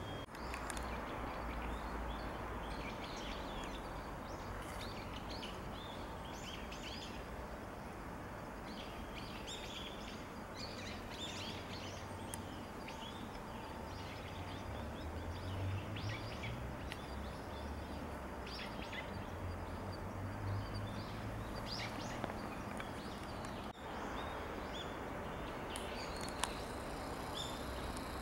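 Outdoor ambience of small birds chirping on and off over a steady background hiss, with a low rumble underneath.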